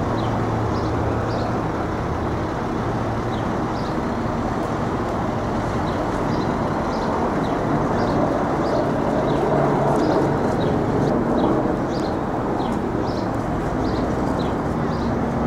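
Steady city street traffic: passing cars and engines running, with a low engine hum in the first few seconds and faint, short high chirps scattered throughout.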